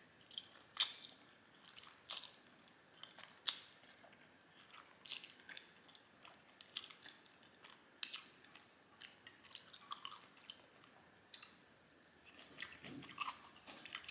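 Close-miked chewing of Korean black bean noodles (jjajangmyeon) in thick sauce: irregular wet mouth smacks and clicks, about one or two a second.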